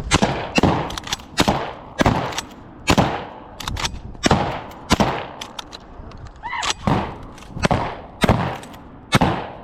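A rapid string of shotgun blasts from more than one shooter firing at flushing pigeons, about a dozen shots in under ten seconds, some nearly overlapping, each with a short echoing tail.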